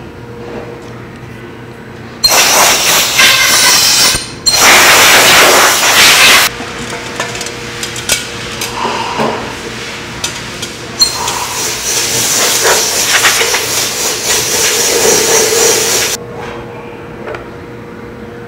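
Compressed air hissing in loud blasts that start and stop sharply from a powder coating fluidizer's air line: two blasts of about two seconds each a couple of seconds in, then a longer one of about five seconds past the middle. Between the blasts, metal parts clack and knock as they are handled.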